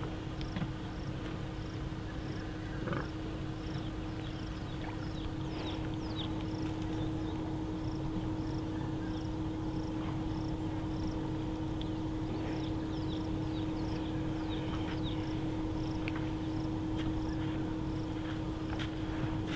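Outdoor ambience: a steady low hum with one constant tone, with birds giving short chirps now and then and a faint high note pulsing about twice a second.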